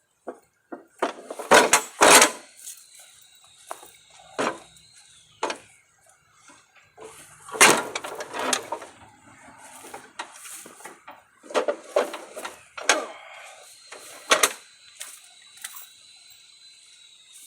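Irregular clanks and knocks of a steel riding-mower deck being shifted and pushed into place underneath the mower, with the loudest hits about 2, 8 and 14 seconds in. A faint thin high whine holds for a few seconds twice, then drops away.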